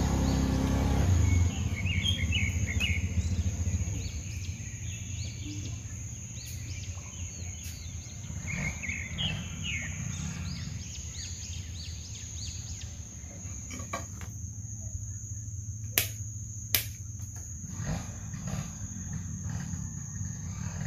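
Outdoor ambience: a steady high-pitched insect drone over a low rumble, with clusters of short bird-like chirps. Two sharp clicks come close together about three-quarters of the way through.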